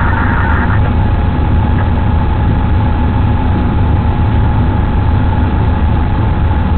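Inside a locomotive cab at about 44 km/h: a steady low engine-and-running rumble with a thin steady whine above it. The audio is recorded by the cab's DVR microphone and sounds dull, with no high treble.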